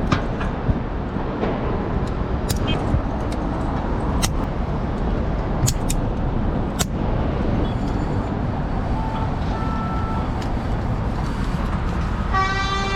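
Steady city traffic noise with scattered sharp clicks, and a car horn sounding in one steady blast near the end.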